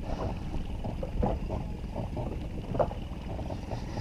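Wind on the microphone and small waves slapping against an inflatable boat: a steady low rumble with a few soft knocks.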